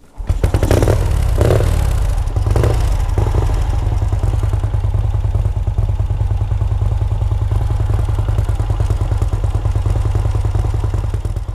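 1951 Vincent Rapide's 998 cc V-twin engine running: a few quick blips of the throttle in the first three seconds, then a steady, even idle.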